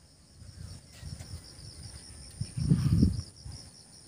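Insects chirping in a steady, fast-pulsing high trill. Low rumbling buffets hit the microphone throughout and are loudest a little past halfway through.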